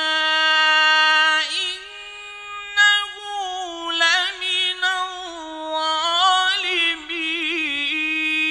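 A male qari reciting the Quran in the melodic mujawwad style, drawing vowels out into long, high held notes. There is a short break near three seconds, then rapid wavering ornamental turns toward the end.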